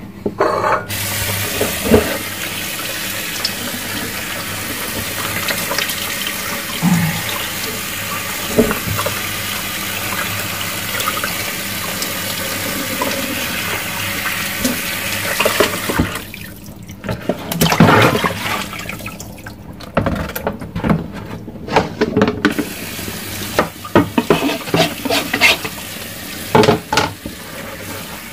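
Water running steadily from a tap into a sink for about fifteen seconds, then shut off, followed by scattered knocks and splashes of things being handled in the water.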